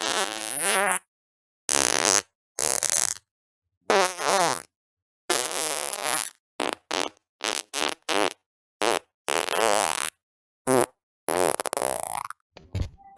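A rapid string of separate fart sounds, about a dozen, some long and wavering in pitch, others short pops, each cut off into dead silence before the next.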